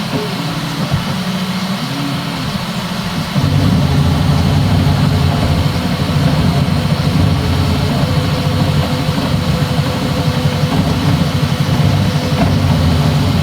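Bambu Lab X1 Carbon 3D printer laying down the first layer of a print, its stepper motors whirring through the toolhead moves. Shifting motor tones for the first few seconds give way, about three seconds in, to a louder, busy, steady whirr as printing gets under way.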